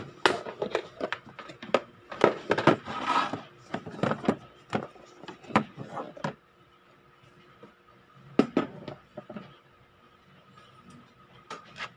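Plastic bread container and its clear lid being handled on a wooden board: a run of clicks and knocks in the first half, then a few single knocks near the end.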